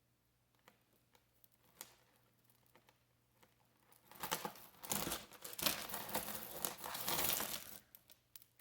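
Hands working through a tangled bag of costume jewelry: a few faint clicks of beads and chain, then, about four seconds in, about four seconds of loud crinkling and rustling.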